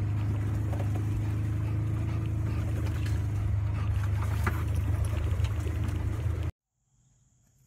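Open-sided off-road vehicle driving, a steady low engine rumble mixed with wind noise on the microphone. The sound cuts off suddenly about six and a half seconds in.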